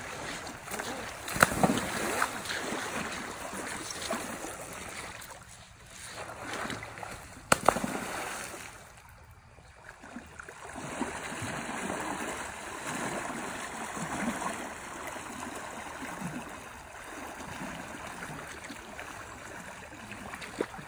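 River water sloshing and splashing around legs wading through a shallow river, with a sharp knock about a second and a half in and another about seven and a half seconds in.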